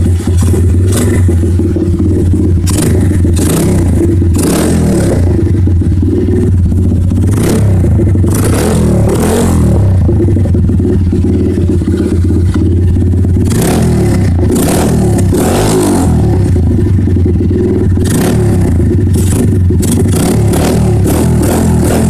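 Pit bike engine running loud through an aftermarket chrome performance pipe and silencer, its pitch swinging up and down a few times as the throttle is blipped.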